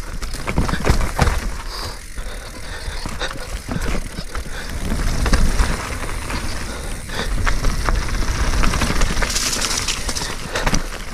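Mountain bike being ridden down a rough technical trail: tyres over dirt and rock, with the chain and frame rattling in many short clicks and knocks. Wind buffets the microphone as a steady low rumble.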